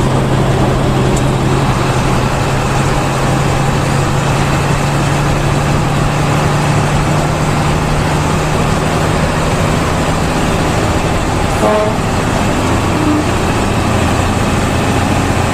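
Intercity bus running along the highway, heard from inside: a steady drone of engine and road noise with a low, even hum that fades about eleven seconds in. A brief higher pitched toot comes just before twelve seconds.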